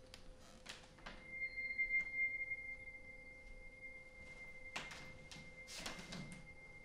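A thin, steady high-pitched tone held from about a second in, over a few soft, scattered knocks and rustles.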